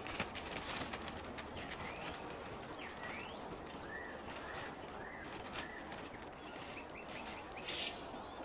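Wild birds calling in the forest: scattered short chirps, including a run of four similar rising-and-falling notes about halfway through, over a steady hiss of background noise.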